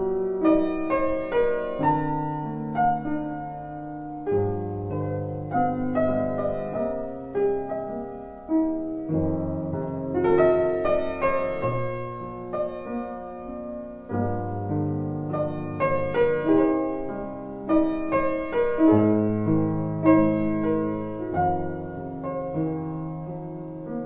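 Background piano music: a melody of struck notes over held low bass notes.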